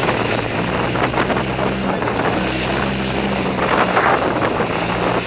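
Gas-engine E-Z-GO golf cart running along a rough dirt trail, its engine note stepping slightly up and down as the throttle changes, with wind buffeting the microphone.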